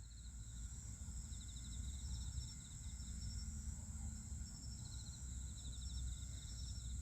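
Crickets and other night insects chirping in quick pulsed trills, over a faint low rumble.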